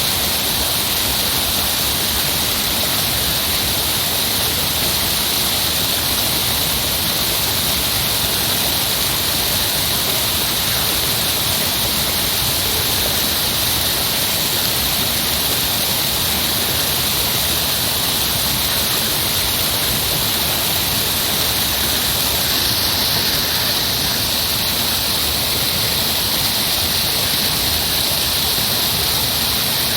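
Heavy rushing water, a loud and steady flow with no breaks or changes.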